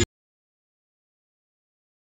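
Silence: a loud electronic dance track cuts off abruptly at the very start, leaving dead digital silence.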